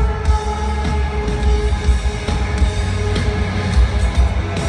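Live band music played loud through a festival PA: held notes over a heavy, pounding bass.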